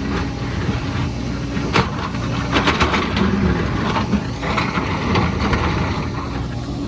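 Excavator's diesel engine running steadily under load, with scraping and clattering of rock and soil breaking in at intervals, the heaviest bursts around the middle.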